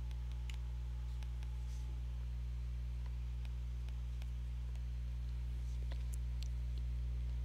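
Steady low electrical hum, with faint scattered taps of a stylus on a tablet's glass screen as handwriting is added.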